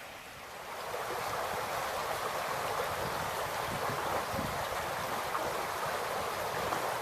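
Shallow creek babbling over rocks, a steady rush of running water that grows louder about a second in and then holds even.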